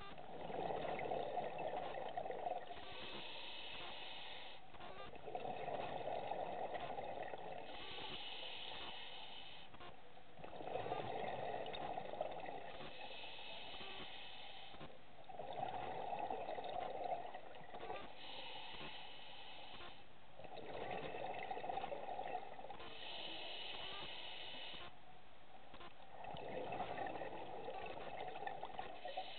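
Scuba diver breathing through a regulator underwater. The hiss of each inhale alternates with the bubbling rush of each exhale, in a slow, even rhythm of about one breath every five seconds, six breaths in all.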